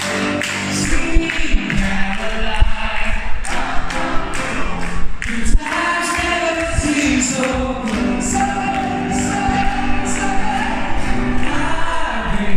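A man singing live into a microphone, with a grand piano accompanying him.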